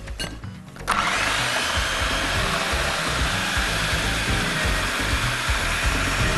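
Electric food processor (chopper) starting up about a second in with a short rising whine, then running steadily as it finely minces boiled cauliflower.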